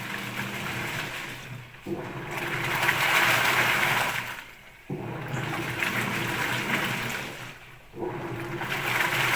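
Top-load washing machine's pulsator agitating the load in water: motor hum and sloshing come in strokes of about three seconds, with a brief pause each time the pulsator reverses direction.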